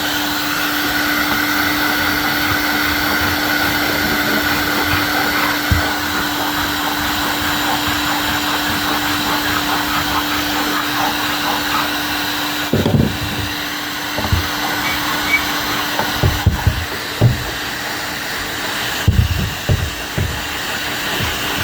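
An electric power tool's motor running steadily with a constant hum. In the second half come a scattering of dull knocks and bumps.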